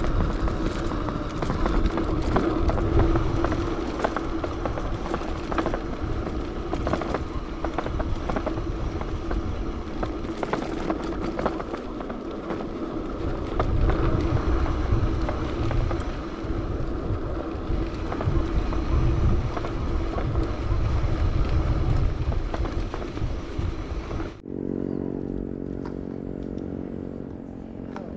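Wind buffeting an action camera's microphone on a moving bicycle, with rough road rumble, small clicks and a steady hum. About 24 seconds in the sound changes suddenly to a quieter, steady low drone made of several evenly spaced tones.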